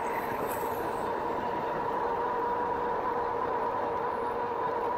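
A 2018 RadRover fat-tire electric bike riding at steady speed: a steady two-note whine over a constant wash of wind and tyre noise.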